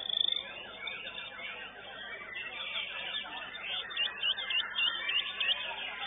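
White-rumped shama (murai batu) singing a fast, varied song of repeated whistled phrases and trills, opening with a sharp, rapid trill.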